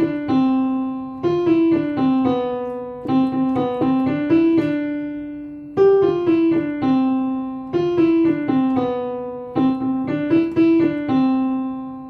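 Piano playing a simple children's-song melody over low bass notes, the same short phrase played twice.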